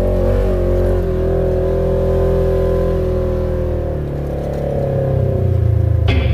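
Polaris RZR XP 1000 side-by-side's parallel-twin engine running along a dirt trail, its pitch sliding down about three seconds in as it eases off, then building again near the end.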